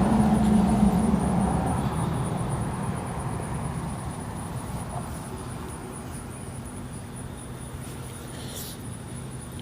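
A low, even noise, loudest at the start, that fades away over the first four seconds or so and settles into a quieter steady background.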